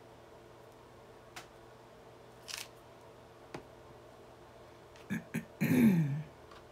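Faint scattered clicks and taps of a flexible stamp and plastic ink pad being handled on a cutting mat, with two sharper clicks about five seconds in. Right after comes a short murmured vocal sound that falls in pitch.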